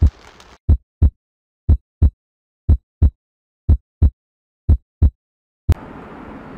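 Heartbeat sound effect: deep paired thumps (lub-dub) repeating about once a second, six double beats in all. It stops with a sharp click, after which a faint steady room hiss takes over.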